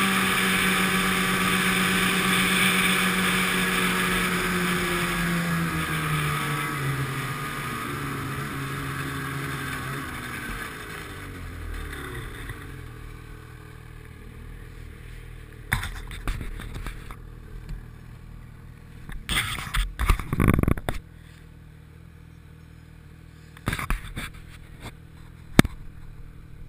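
Snowmobile engine running at speed, then slowing down with a falling pitch over several seconds and dropping to a low idle. Later come a few sharp knocks and short noisy bursts.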